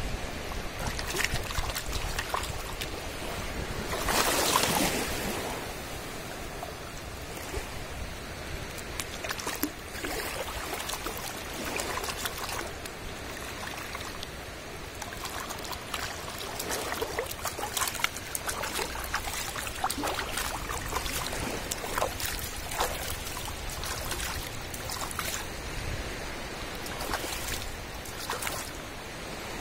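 Shallow seawater splashing and sloshing as hands wash and gut a fish in it, with many small, sharp splashes and a louder rush of water about four seconds in.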